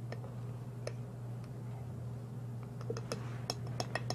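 Light clicks and clinks of a toothbrush and small dishes being handled on a table, sparse at first, then several sharp ringing clinks in the last second and a half, over a steady low hum.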